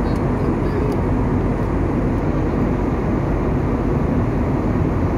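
Steady cabin noise of an airliner in cruise flight: the constant rush of engines and airflow, even and unchanging, heaviest in the low end.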